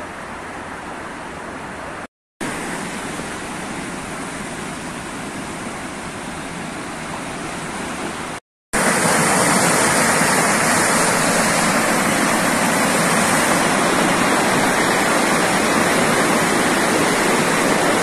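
Floodwater rushing as a steady roar of water. It cuts out briefly twice, and after the second break, about nine seconds in, it becomes much louder: a torrent of floodwater pouring down a long flight of outdoor steps.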